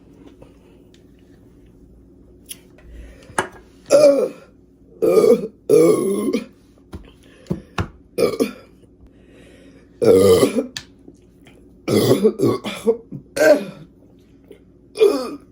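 A woman burping again and again: a string of about ten loud belches, some short and some drawn out, with gaps of a second or so between them.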